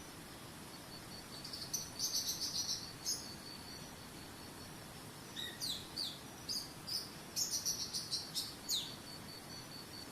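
Songbird singing in two bursts of quick chirps and down-slurred notes over a steady high-pitched insect trill, with a soft even rush of water beneath.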